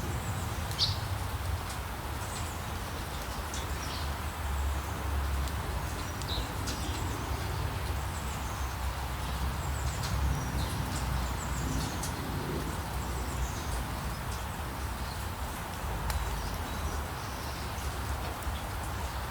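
Light rain falling as a steady hiss, with birds chirping briefly and sparsely over it and a low rumble underneath.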